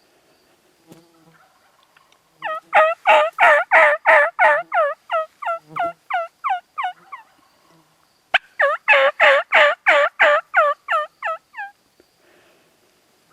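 Turkey yelping: two long series of loud, evenly spaced yelps, about four a second. Each series fades toward its end.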